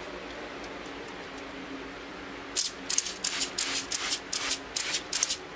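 An electric fan hums steadily. About two and a half seconds in, an aerosol can of paint stripper starts spraying in short hissing bursts, about three a second, onto an engine valve cover.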